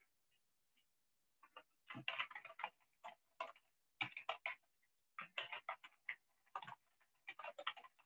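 Irregular runs of quick, light clicks in short bursts separated by brief pauses.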